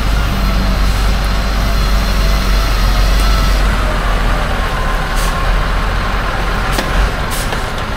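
A heavy vehicle engine running steadily with a deep rumble, a faint whine slowly falling in pitch midway, and a few sharp clicks near the end.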